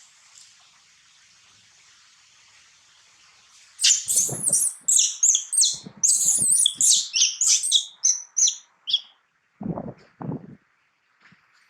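Baby monkey crying in a rapid string of shrill, high squeals that start about four seconds in and last about five seconds, followed by a couple of low thumps.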